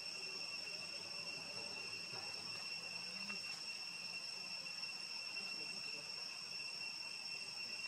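Insects droning in a steady, unchanging high-pitched whine.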